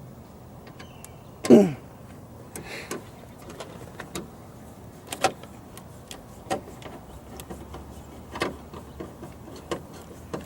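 Scattered clicks and light knocks of hand work on a car door's interior handle and trim parts, with one louder brief sound that falls in pitch about a second and a half in.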